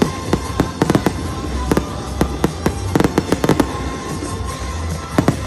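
Aerial fireworks bursting in quick, irregular succession: sharp bangs and cracks, bunched most densely around one second and around three seconds in.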